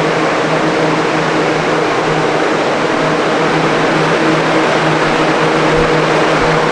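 Steady whir of an electric fan or blower motor: a constant hum under a loud rush of air, cutting off suddenly at the end.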